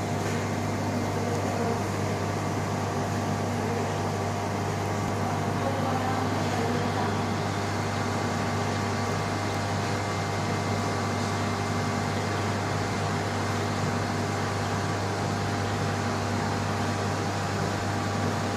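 Aquarium filtration equipment running: a low steady hum with a few fixed tones above it and an even hiss.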